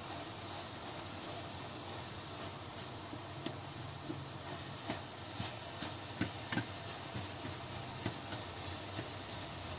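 Ground meat and onion sizzling in a frying pan, a steady hiss, while a slotted spatula stirs them and scrapes and taps against the pan now and then.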